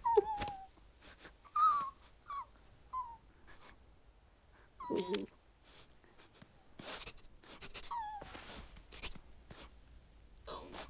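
Cartoon squirrel characters squeaking and chittering in short calls that fall in pitch, with a louder squeal about five seconds in. Quick clicks and swishes of cartoon sound effects fall between the calls.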